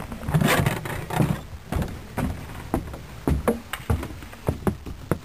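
Footsteps on wooden stairs and a wooden floor: a run of irregular dull thuds and knocks, about two a second.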